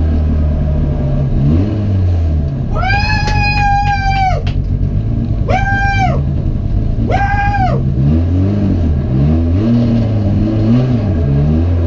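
Renault Clio RS Cup race car's engine heard from inside the stripped cockpit, revving up and down as the driver works through the gears. Three loud high-pitched squeals cut in, the longest about three seconds in and two shorter ones a few seconds later.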